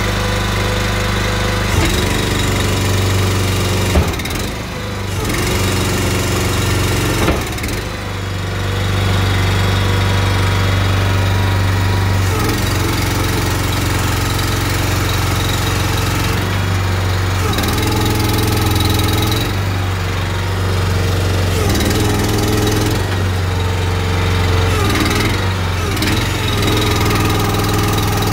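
Small petrol engine of a brick paving machine running steadily, driving its hydraulic pump, with a few short metallic knocks about 2, 4 and 7 seconds in.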